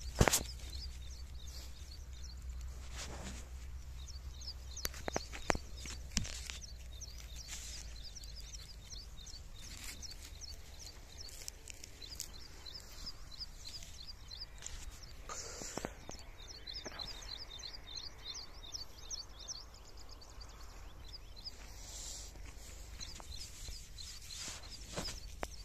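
Outdoor field sound with birds chirping in quick repeated runs. A sharp knock right at the start and a few further clicks and rustles come from onions being picked up off dry ploughed soil.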